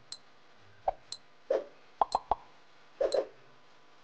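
Countdown timer sound effect: a quick, irregular series of short pops and clicks, about two a second, some with a brief high ping.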